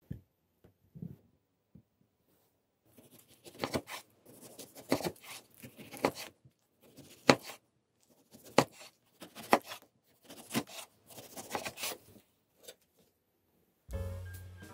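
Kitchen knife slicing through ripe tomatoes and onto an end-grain wooden cutting board, one cut about every second. Background music comes in near the end.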